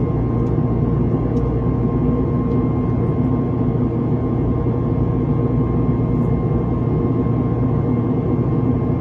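Steady cabin drone of an Airbus A321neo in flight, heard from inside the cabin: its Pratt & Whitney geared turbofans and airflow make an unchanging low rumble, with a faint constant whine on top.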